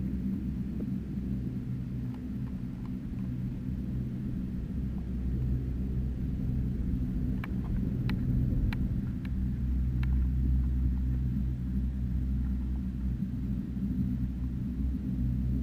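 Skis sliding over packed snow, heard as a steady low rumble that swells a little around the middle, with a handful of sharp clicks between about seven and ten seconds in.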